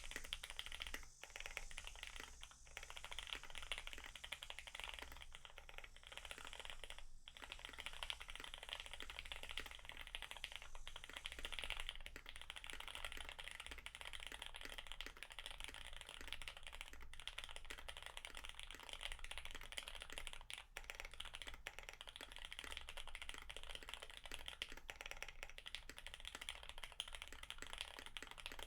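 Continuous fast typing on a custom mechanical keyboard with lubed, retooled Cherry MX Black linear switches on a PET plate with Poron dampening and GMK keycaps, the keystrokes running together with a few brief pauses.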